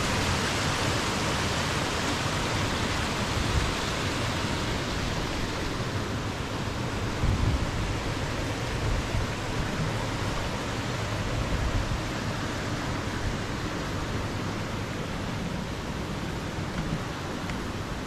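Rushing water of a creek's cascades, a steady roar that slowly grows quieter toward the end, with a couple of low bumps about seven seconds in.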